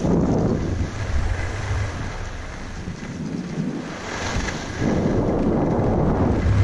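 Wind buffeting a GoPro's microphone while skiing downhill, a steady low rumble, with the hiss of skis on groomed snow swelling louder through turns at the start and again from about five seconds in.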